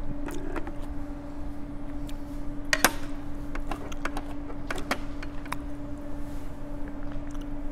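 A steady hum on one low tone, with a few light clicks and knocks scattered through it; the sharpest knock comes about three seconds in.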